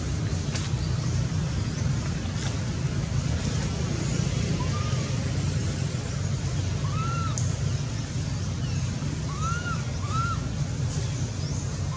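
Steady low wind rumble on the microphone, with four short high calls that each rise and fall, the last two close together near the end.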